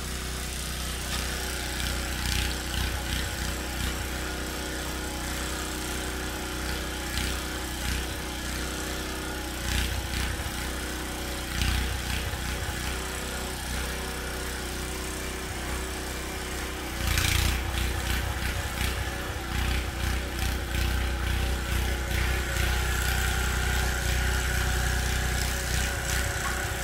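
Snow blower's small gas engine running steadily under load while clearing snow, with a few short knocks and clatters; the loudest comes about seventeen seconds in.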